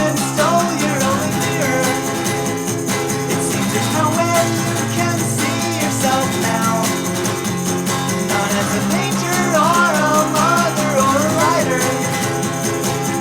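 Music: a song with guitar, a wavering melodic line running over steady sustained chords.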